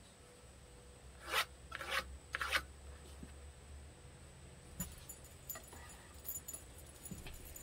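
Pencil scratching a marking line on a pine board: three short scraping strokes about half a second apart, then a few faint light taps.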